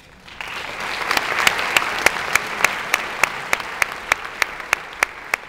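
Audience applauding, starting about half a second in, with one clapper close by standing out in sharp, even claps about three a second.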